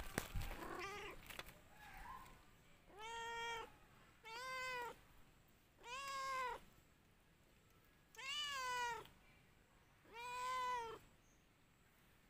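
A domestic cat meowing: a faint call near the start, then five clear, drawn-out meows about every one and a half to two seconds, each rising and then falling in pitch.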